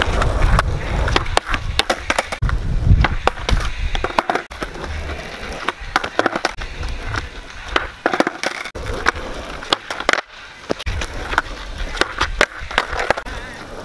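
Skateboard on asphalt during kickflip practice: repeated sharp clacks and slaps of the deck and wheels hitting the ground, with stretches of wheels rolling.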